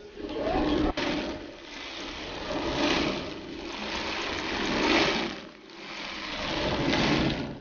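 Windmill millstones grinding and cracking maize, a rumbling, rattling noise that swells and fades about every two seconds, with a single sharp knock about a second in.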